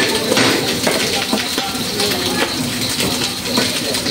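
Busy kitchen sounds: a steady hiss from the lit gas wok burners, irregular knocks and clinks of utensils, and indistinct voices in the background.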